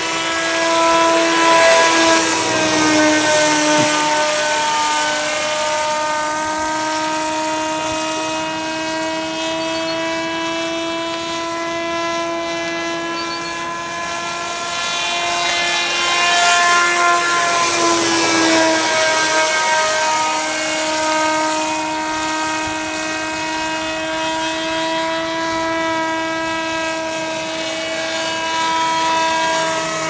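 Model gyrocopter's motor and propeller flying overhead: a steady, high buzzing hum that grows louder and drops slightly in pitch as the aircraft passes close, twice, about 2 seconds and 17 seconds in.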